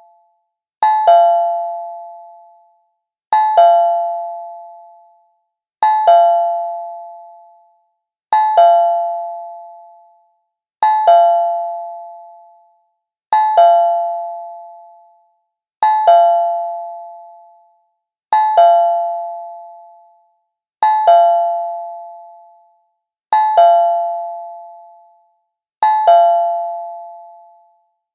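Cartoon doorbell chime, rung over and over about every two and a half seconds. Each ring is a quick double ding-dong strike of bright, pitched tones that rings out and fades over about two seconds.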